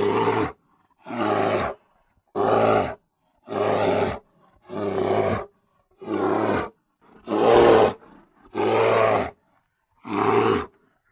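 Grizzly bear roaring: a string of about nine short, loud roars, each under a second long, coming roughly once a second with brief silences between them.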